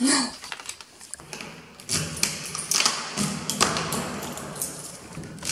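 A string of thumps, taps and clicks with rustling, the handling noise of a handheld camera being carried while someone moves about, busiest from about two seconds in.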